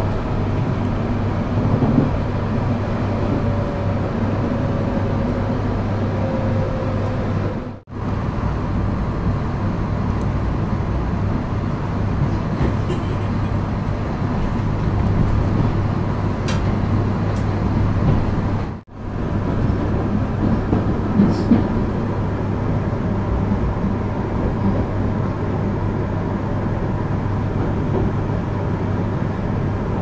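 JR Hokkaido 721 series electric train running, heard from inside the passenger car: a steady rumble and low hum, with a faint whine slowly falling in pitch over the first several seconds. The sound cuts out briefly about eight seconds in and again near nineteen seconds.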